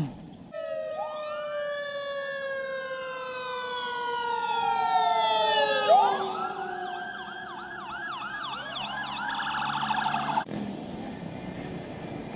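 Emergency-vehicle siren: a rising and falling wail that switches to fast, repeated yelps about halfway through, then cuts off suddenly near the end.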